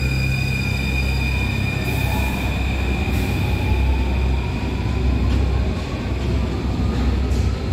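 A Paris Métro line 5 MF 01 train pulling out of the station and accelerating away into the tunnel. There is a steady rumble of wheels on rails, and an electric motor whine rises in pitch as it picks up speed.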